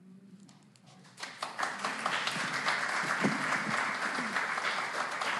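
Audience applauding: after a quiet first second the clapping starts and quickly builds to steady applause.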